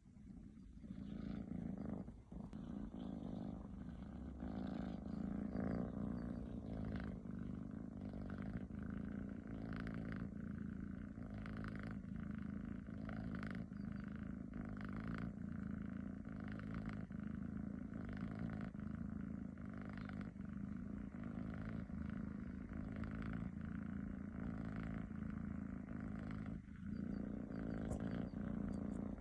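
Tabby cat snoring, a steady low rasp that pulses with each breath about once a second.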